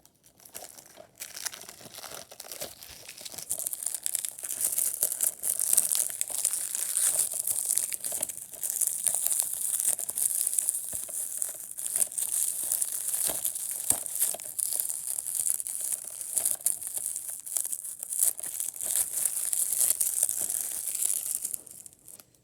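Plastic wrapping being torn and peeled off a DVD box set: a long stretch of dense crinkling and crackling that builds over the first few seconds and stops abruptly near the end.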